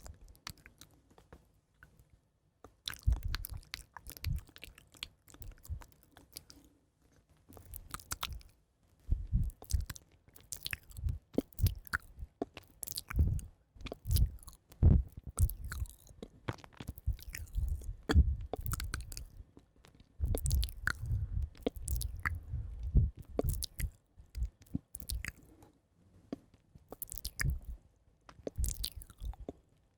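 Close-miked ASMR mouth sounds: irregular wet clicks and smacks with soft low thumps, coming in clusters separated by short pauses.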